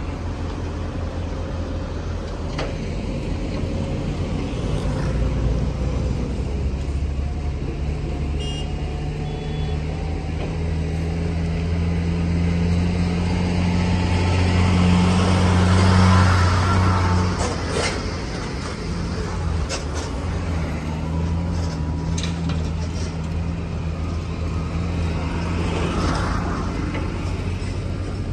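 Road traffic with heavy vehicles: a steady low diesel engine hum runs throughout, and one vehicle passes close, growing louder to a peak about halfway through and then fading.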